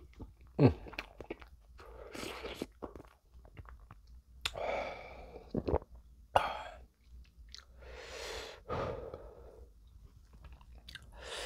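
A man blowing out hard through pursed lips, several separate long breaths, with lip smacks and mouth clicks in between: cooling a mouth still burning from very spicy noodles.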